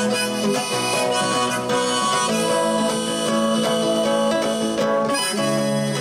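Harmonica in a neck holder playing a melody of held notes over an acoustic guitar, an instrumental break with no singing.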